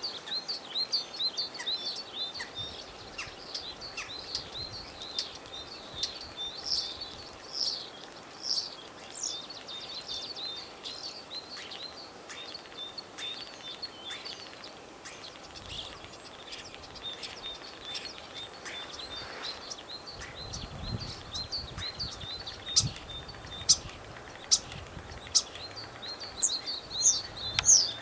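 Common starlings singing in spring: a dense, continuous run of chirps, whistles and clicks, with sharper, louder clicks near the end.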